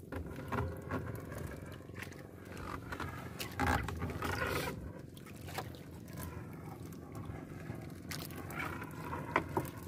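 Wet monofilament triple net (trammel net) being hauled hand over hand across a boat's gunwale: rustling and scraping with scattered light knocks, and a louder swish about four seconds in, over a faint steady low hum.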